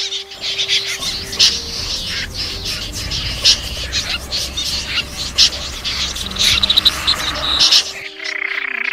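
Snipe calling over and over: many short, harsh calls over a low rumble, with a quick run of rapid calls near the end.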